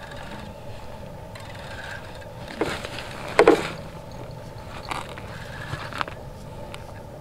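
Boots scraping and crunching on snow-covered ice as an angler shifts from kneeling to standing while fighting a fish. There are a few separate scrapes, the loudest about three and a half seconds in.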